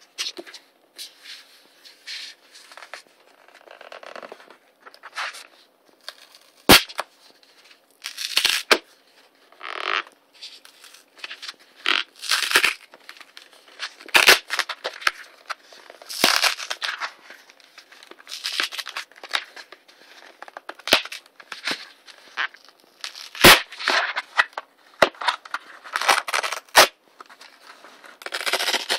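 Brown cardboard mailer box being torn open by hand: irregular ripping and crackling of cardboard and paper tape, with a couple of sharp snaps as it gives way.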